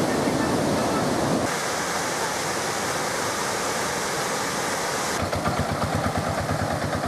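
Rushing floodwater, a steady noise that changes character at a cut about a second and a half in. About five seconds in, an engine comes in, running with a rapid, regular throb.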